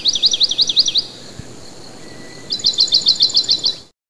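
A songbird singing: a quick run of about eight sweeping chirps, a short pause, then a second, faster run of about ten notes that cuts off suddenly near the end.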